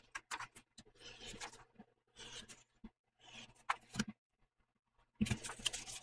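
A glue stick rubbing along paper and sheets of printer paper being handled and pressed flat on a cutting mat, in short bursts of rustling and rubbing, the loudest near the end.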